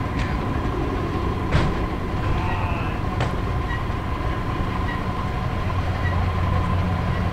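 Steady airport ramp noise: a low rumble of running aircraft and ground equipment with a steady high whine, broken by two sharp knocks. Faint short chirps come about once a second in the second half.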